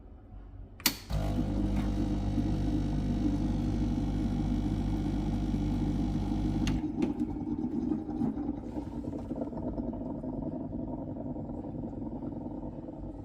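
Breville BES920 dual boiler espresso machine: a click about a second in, then a steady mechanical hum for about six seconds that cuts off with another click. A gurgling sound from the machine follows, fading slowly.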